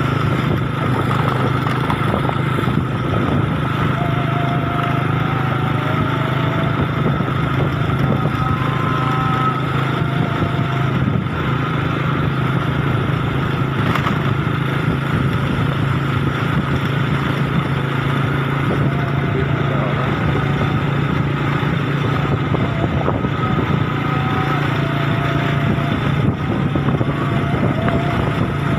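Motorcycle engine running steadily while riding, with road and wind noise, and faint wavering higher tones coming and going now and then.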